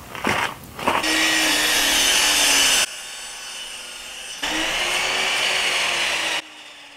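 Power miter saw cutting wood, two cuts of about two seconds each, its pitch sagging slightly as the blade cuts. A few knocks come just before the first cut.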